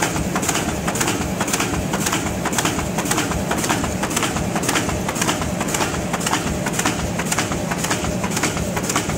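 FD-1080x640 roll-fed flatbed die-cutting and creasing machine running, its cutting and hole-stripping strokes making a fast, even clatter several times a second over a steady low hum.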